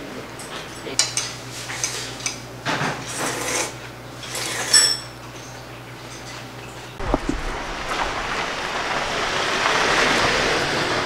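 Metal spoon and chopsticks clinking against a stainless steel soup bowl: scattered light clinks and one ringing clink about five seconds in. About seven seconds in it cuts off abruptly and gives way to a steady rushing noise that swells toward the end.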